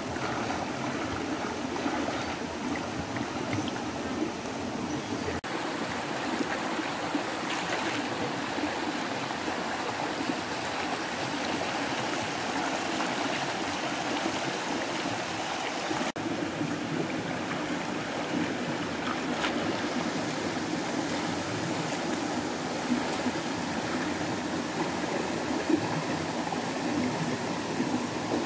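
Rocky stream running, with water pouring over boulders in a small cascade: a steady rush with no break.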